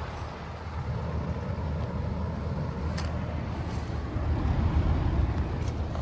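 Daikin Inverter air conditioner outdoor unit running: a steady low hum from its inverter-driven compressor under the rush of air from the condenser fan, with one light tick about halfway through.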